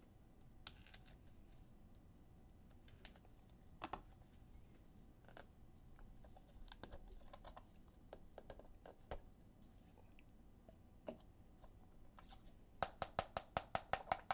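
Trading cards and their packaging being handled: faint scattered clicks and rustles, then near the end a quick, even run of clicks, about five a second.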